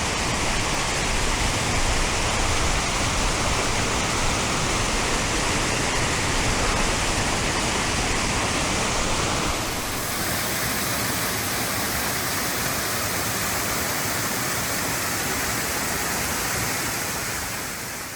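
Waterfall: a steady rush of falling water. It drops slightly in level about halfway through and fades out at the very end.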